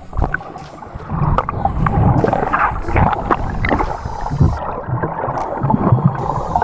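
Seawater sloshing and gurgling around a camera at or just below the surface, with scattered sharp knocks and clicks.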